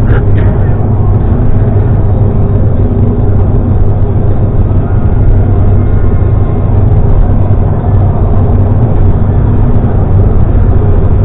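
Steady engine and road noise of a moving motor vehicle, a loud even rumble with a constant low hum.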